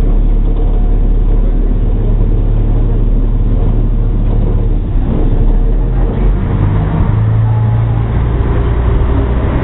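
Diesel engine of a class 772 railbus running, heard from inside the railcar's cabin as a steady low drone that shifts slightly in pitch about halfway through.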